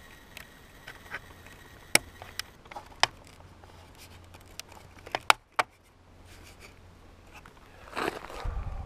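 Handling noise as a camera resting on gravel is picked up and tilted: a few scattered sharp clicks and knocks, then louder crunching and rustling on the gravel near the end.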